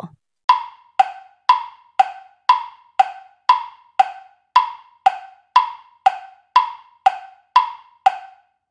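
Quiz countdown timer's ticking-clock sound effect: sharp woodblock-like ticks, about two a second, stopping shortly before the end.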